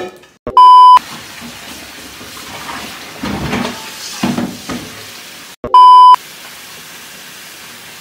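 Two loud, flat bleeps, about half a second each and some five seconds apart. After the second, a steady rush of water from a kitchen tap.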